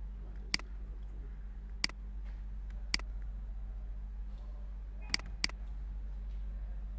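Computer mouse button clicking: three single clicks spaced a second or so apart, then a quick double click about five seconds in, the double click opening a program. A steady low hum runs underneath.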